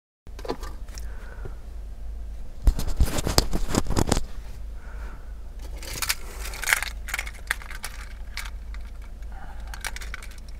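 Clicks, scrapes and rustles of something being handled inside a car cabin, with a loud burst of knocking about three seconds in, over a low steady hum.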